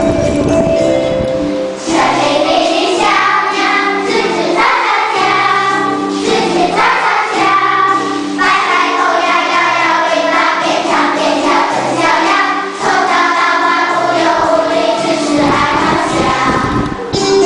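A group of children singing a children's song together over instrumental backing music. The singing comes in about two seconds in.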